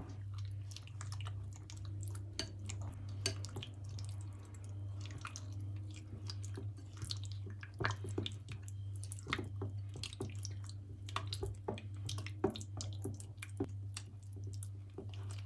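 Silicone spatula stirring chunks of chicken through a thick yogurt-and-spice marinade in a glass bowl: irregular wet squelches and light clicks, over a steady low hum.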